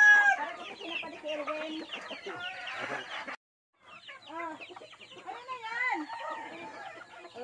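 A flock of native chickens (hens, chicks and a rooster) clucking and calling in many short, overlapping calls while they feed. The sound cuts out for a moment about three and a half seconds in.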